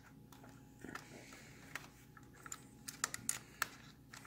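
Faint, irregular light clicks and taps of small metal carburetor parts being handled and fitted, with a quick run of clicks about three seconds in.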